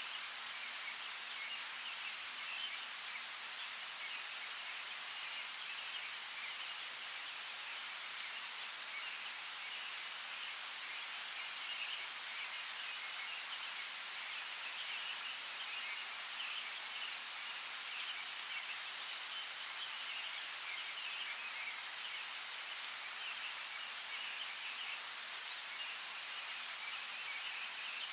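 Steady rain falling, with a few sharper drop hits, and a dense, busy chirping of birds running through it.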